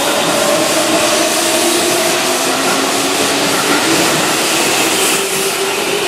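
Keihan 7000-series electric train moving along the platform and picking up speed: a steady rumble of wheels and running gear, with a motor whine that slowly rises in pitch.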